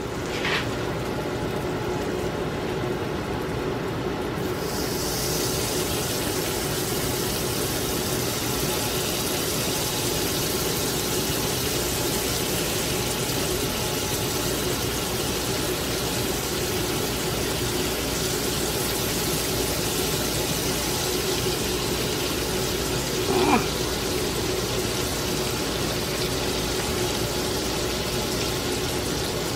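Pancakes and butter sizzling in a hot nonstick frying pan, a steady hiss that turns brighter about four seconds in, over a steady low hum. One brief knock a few seconds before the end.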